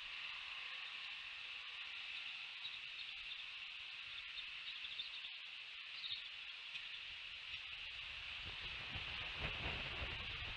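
Steady high-pitched hiss of outdoor ambience on a nest-cam microphone, with a few faint chirps. From about eight seconds in, a low rustling and rumbling sets in.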